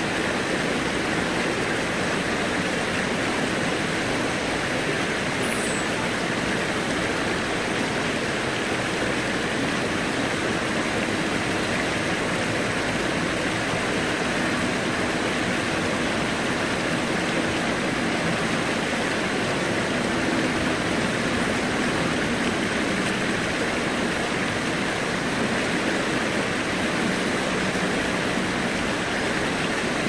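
Steady rushing of a shallow stream running over rocks and stepping stones, mixed with the low hum of city traffic.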